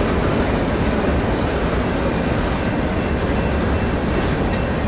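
Empty covered hopper cars of a freight train rolling past, their steel wheels running on the rails in a steady, even noise.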